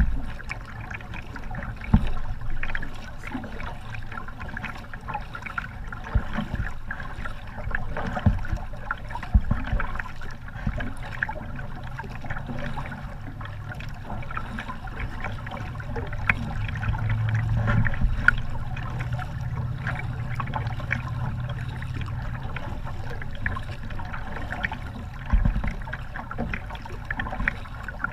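Double-bladed kayak paddle stroking the water beside a small plastic sit-on-top kayak, the blades splashing in and water trickling off them, with occasional sharp knocks. A low drone swells and fades in the middle.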